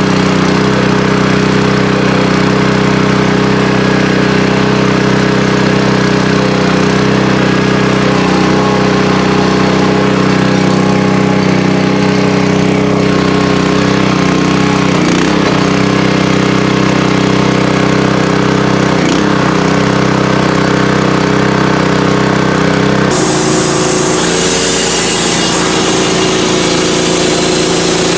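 Portable sawmill's engine running steadily at a constant speed. About 23 seconds in the engine note shifts and a high hiss is added.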